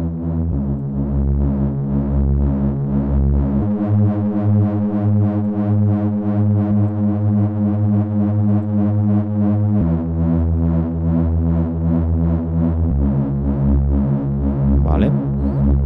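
Reese bass synth patch from Serum 2 playing a looped line of long held notes that change pitch about four times, thickened by tube distortion and heavy OTT compression.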